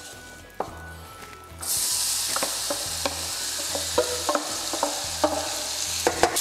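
Chopped onion tipped into hot lard in a stainless steel frying pan, setting off a sudden, steady sizzle about one and a half seconds in. Over the sizzle come knocks and clinks of a wooden spatula scraping the onion out of a metal bowl.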